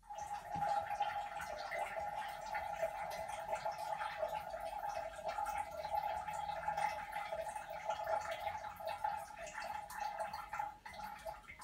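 A cat urinating through a Litter Kwitter toilet-training seat into the toilet bowl: a steady trickle of liquid into water, thinning near the end.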